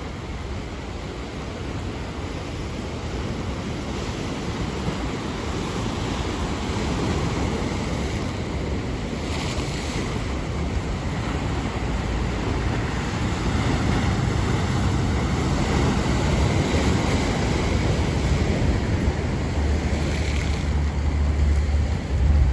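Atlantic surf breaking, a continuous wash of waves with brief brighter crashes about nine seconds in and again near the end, with wind buffeting the microphone as a low rumble.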